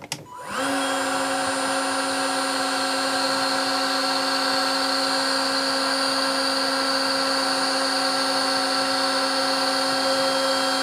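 Ryobi R18HG-0 18V cordless heat gun switched on about half a second in: its fan motor spins up and then runs steadily, a constant whine over a rush of blown air.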